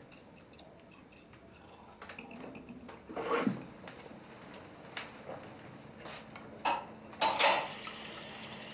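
Spoons, cups and plates clinking and knocking at a meal table: scattered light clinks, with a louder clatter about three seconds in and a few sharper knocks near the end.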